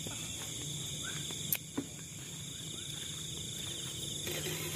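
A steady, high-pitched chorus of crickets and other insects, with two sharp clicks a moment apart about a second and a half in.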